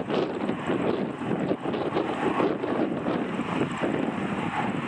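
Airbus A320 jet engines running during the landing rollout, mixed with gusty wind buffeting the microphone.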